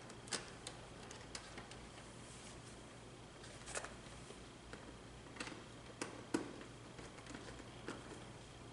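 Scattered light clicks and taps as hands work a wire into the terminals of a Schneider TeSys IEC contactor mounted on DIN rail, the sharpest click about six seconds in, over a faint steady hum.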